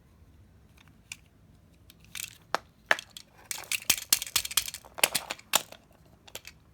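Hands fiddling with a battery-powered plastic toy train engine that is not yet running: a quick, irregular run of sharp plastic clicks and rattles starting about two seconds in, busiest in the middle, then stopping.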